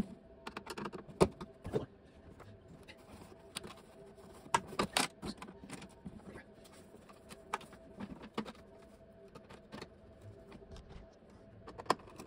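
Small irregular clicks, taps and rattles of a hand tool, screws and hard plastic being handled while parts are fitted to a motorcycle saddlebag lid. A faint steady hum runs underneath.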